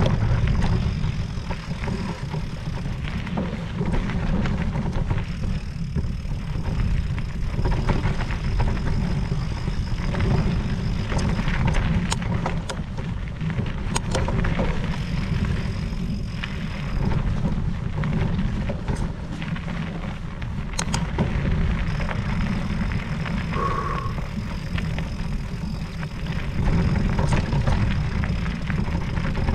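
Wind buffeting the camera microphone during an e-mountain-bike ride: a steady low rumble, with a few faint clicks.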